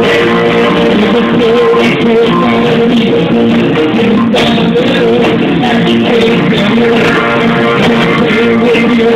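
Live rock band playing loud, continuous music with electric guitars and keyboards, steady held notes under the guitar lines.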